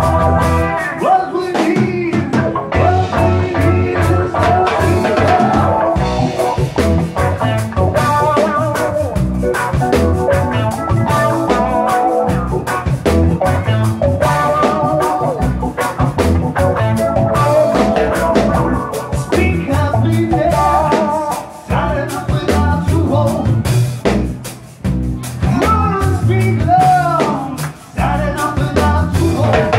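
Live band playing a song on electric guitars, bass and drum kit, amplified through a PA.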